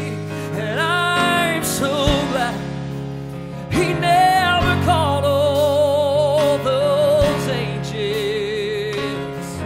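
A man singing a slow gospel song in long held notes with vibrato, over sustained accompaniment chords, with an Alesis electronic drum kit struck now and then.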